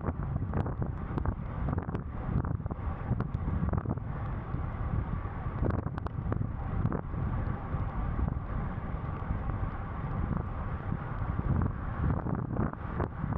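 Wind buffeting the microphone of a camera on a road bike riding fast, with the hiss of tyres on a wet road and scattered small clicks and knocks throughout.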